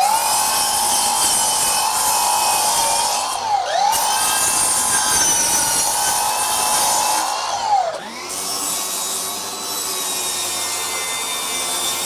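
Milwaukee M18 FUEL 10-inch sliding compound miter saw cutting wood shelf boards. The cordless motor's high whine drops and picks up again between cuts, about every four seconds.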